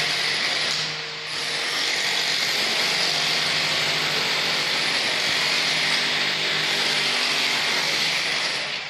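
A power tool motor runs steadily with a high, hissing noise, dipping briefly about a second in and stopping near the end.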